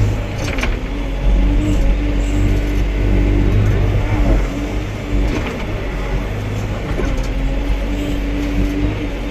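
Excavator working: its diesel engine runs steadily with a whine that rises and falls as the machine moves, and a few sharp knocks from the digging.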